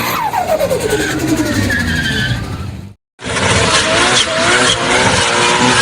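A car's engine revs falling away with tyres squealing, then a sudden cut to silence about three seconds in, and a second clip of tyres squealing over engine noise.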